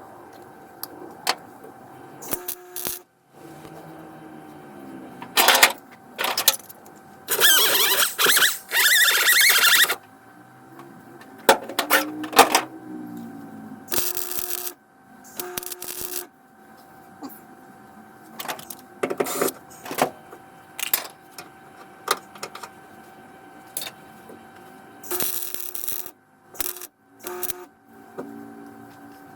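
Welder laying a series of short tack welds and one longer burst of about three seconds, the arc crackling while it fuses a seat-belt anchor plate into car body sheet metal.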